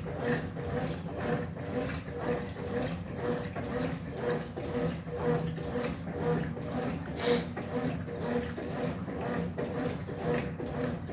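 Top-loading washing machine agitating: the motor hums and the agitator swings the load back and forth in an even rhythm of about two to three strokes a second, with water and clothes sloshing.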